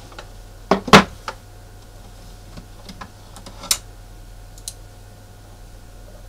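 Plastic toy magnetic drawing board knocked and set down on a desk, a quick cluster of hollow plastic knocks about a second in, then a sharper single click near four seconds and a small one a second later.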